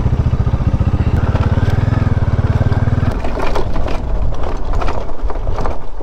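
Motorcycle engine running steadily at low speed on a rough dirt track, with a fast, even low throb from its firing. About three seconds in the engine note drops away, and the uneven noise and knocks of the bike jolting over loose dirt take over.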